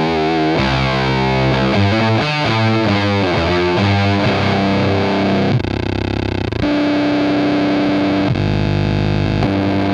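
Electric guitar through a gnarly vintage-voiced fuzz pedal with a noise feedback loop: heavily distorted chords for about five seconds, then a short burst of fizzy noise, then steady held tones that jump in pitch twice.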